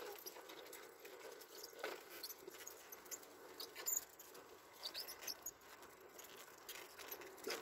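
Quiet outdoor ambience with faint scattered light ticks and a few brief high squeaks.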